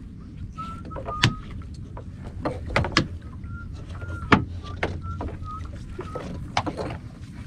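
A fishing net being hauled hand over hand over the gunwale of a small fiberglass boat: irregular knocks and taps as net and gear strike the hull, the loudest about a second, three seconds and four and a half seconds in, with short faint high squeaks now and then.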